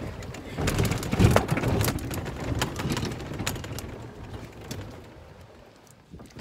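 Moving golf cart: rumble and rattling with many sharp knocks, and wind on the microphone, growing quieter toward the end.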